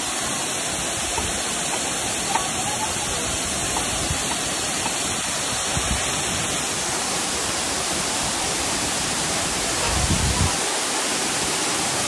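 High waterfall pouring into its plunge pool: a loud, steady rush of falling water, with a brief low rumble about ten seconds in.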